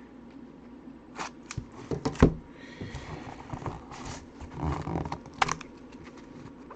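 A sealed cardboard trading-card box being torn and pried open by hand: sharp clicks and snaps, the loudest about two seconds in, then a stretch of tearing and scraping, and a couple more knocks and clicks near the end.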